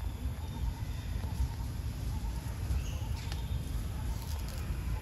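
Forest ambience: a steady low rumble, with a faint repeating call and a few short high chirps about three seconds in and again near the end.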